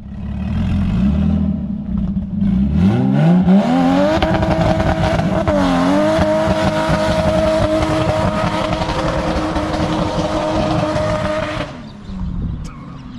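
Toyota Chaser's turbocharged 1G-FE straight-six revving up over about two seconds, then held at high revs for around seven seconds with one brief dip, before dropping back near the end.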